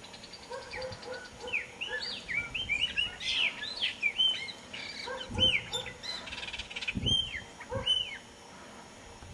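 Chopi blackbird singing: a varied run of short whistled notes that arch up and down, with a rapid rattling trill near the start and another about two-thirds of the way through. A few low thumps sound under the song.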